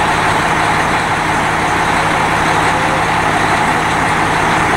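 Mount Washington Cog Railway diesel locomotive M2's engine running steadily, a constant drone with no change in pitch.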